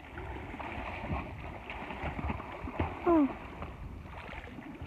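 Water splashing and churning as a person swims and thrashes in a pool of water, with a short voice cry about three seconds in.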